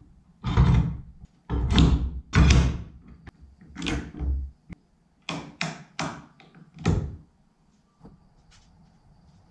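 About ten sharp knocks and clunks over roughly seven seconds, then quiet: metal bar clamps being set on and tightened down across the oak ledges and boards of a ledged door.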